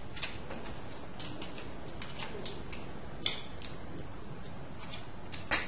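Light taps and rustles of paper ion cutouts being pressed onto a whiteboard: several faint ticks spread out, with a slightly louder tap near the end.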